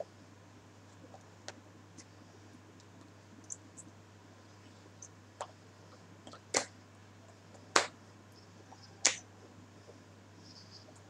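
Bare hands striking together, three sharp slaps a little over a second apart in the second half, among fainter clicks and rustles of moving hands, over a low steady hum.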